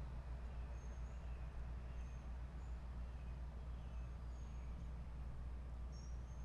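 Outdoor ambience: a steady low rumble with faint, short, high bird chirps about once a second.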